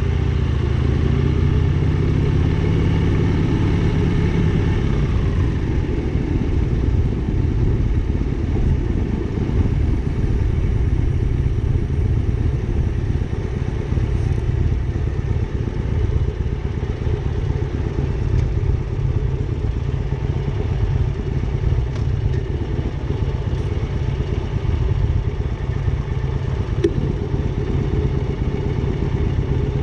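Motorcycle engine running steadily while riding. Its pitch rises over the first few seconds as it accelerates, then it holds a steady rumble.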